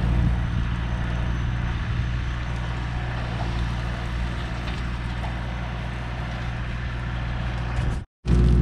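A motor running with a steady low hum as the dump trailer unloads asphalt millings. The sound drops out briefly near the end.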